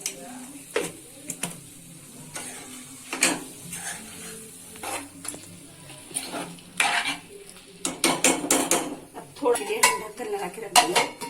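A spoon stirring matar paneer curry in a cooking pan, with irregular clinks and scrapes against the pan that come more often in the second half.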